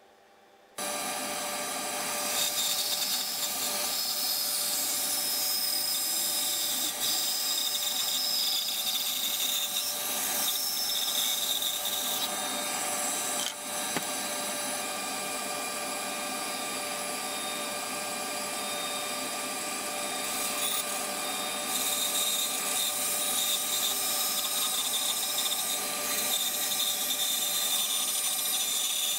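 Band saw running and cutting through a thick block of wood, a steady machine sound with the blade's hiss through the wood. It starts suddenly about a second in.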